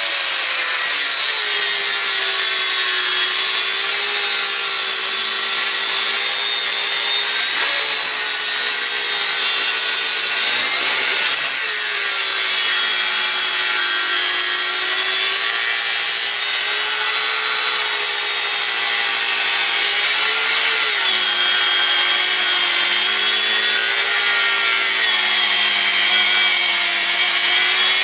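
Electric power tool cutting through 5160 spring steel, running continuously under load. Its motor whine drops in pitch each time it is pressed harder into the cut, about a second in, around halfway, and again later, then recovers right at the end.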